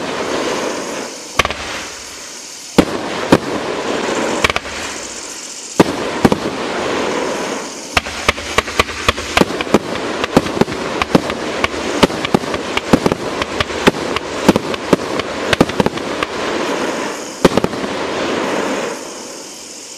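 A 42-shot fan-cake firework (the Doremi 'Bloody Soul' 500-gram cake) firing, with sharp reports from shots and bursts over a continuous hiss and crackle. A few reports are spaced out at first, then they come in a fast run from about eight seconds in. The hiss fades away near the end.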